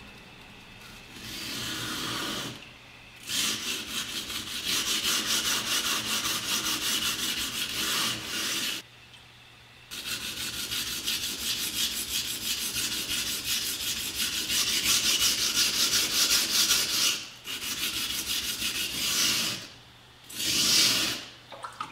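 Yu Kurosaki Shizuku R2-steel chef knife being ground on a wet coarse Naniwa Traditional #220 whetstone: rapid back-and-forth rasping strokes in runs of a few seconds with short pauses between. Steel is being taken off along the whole edge to grind out a chip.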